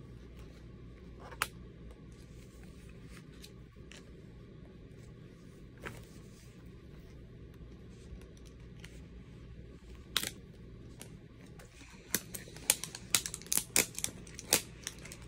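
A toy's packaging wrapper being picked at and peeled off by hand: a few scattered clicks at first, then a quick run of crackles and snaps in the last few seconds as the wrapper is pulled away.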